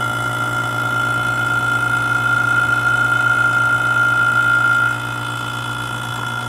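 Electric AC vacuum pump running steadily with a low hum and a high whine, evacuating the air conditioning system through the manifold gauges just opened to it. About five seconds in the whine fades and the sound drops slightly in level.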